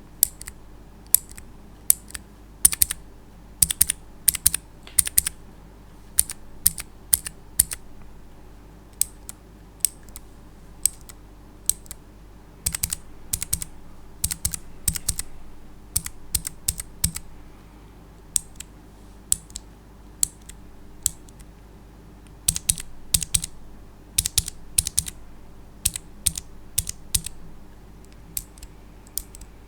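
Clicky blue mechanical keyboard switches (Greetech, Gateron, Outemu and Cherry) pressed and released one key at a time, each stroke a sharp, crisp click, in irregular runs with short pauses between them.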